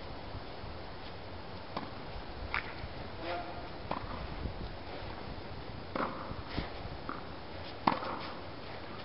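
Tennis rally on a clay court: racket strikes and ball bounces heard as scattered sharp pops every second or two over a steady hiss, the loudest near the end.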